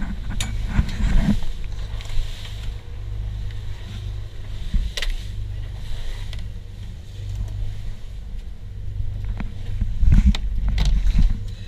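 Motorboat engine running steadily under way, a low hum with wind and water noise over it. A few sharp knocks sound over it, one about five seconds in and several close together near the end.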